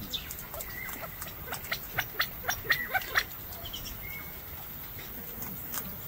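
A run of sharp clicks of small stones as California quail peck and scratch for food in gravel, densest between about one and a half and three seconds in, with a few brief high chirps.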